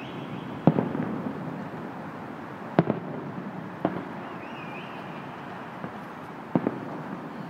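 Aerial firework shells bursting high in the air: five sharp bangs, each with a short echoing tail, two of them close together near the end.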